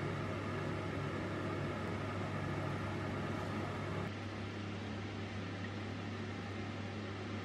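Steady hum and hiss of a kitchen fan running over a pan of stir-frying noodles. The tone shifts slightly about four seconds in.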